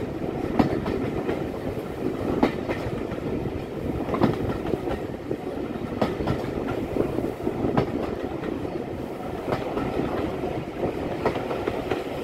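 Train carriages running along the line behind a steam locomotive: a steady rumble from the wheels on the track, with a sharp click from the wheels going over the rail joints roughly every two seconds.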